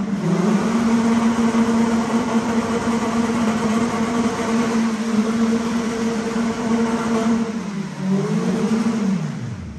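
Twin-engine Honda Civic drift car running at high, steady revs, its engine note then falling away sharply in the last couple of seconds as the revs drop.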